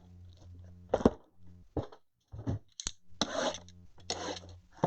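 Crackling, crunching and scraping of packaging as a sealed box of trading cards is opened, with scattered clicks and two longer crackling stretches near the end.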